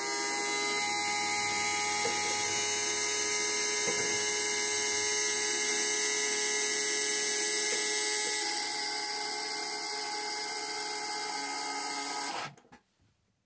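Roland MDX-15 desktop milling machine's spindle motor running with a steady high-pitched whine while the spindle head feeds down. It starts abruptly, gets a little quieter partway through and cuts off near the end.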